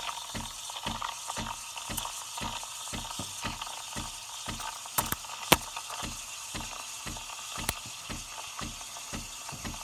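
Breville Barista Express steam wand hissing steadily in a stainless steel pitcher of milk as the milk is steamed and textured for latte art, with a low regular pulsing about three or four times a second. A few sharp ticks stand out around the middle.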